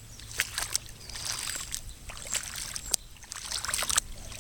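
Boots wading through shallow floodwater in a yard, with irregular splashing and sloshing steps.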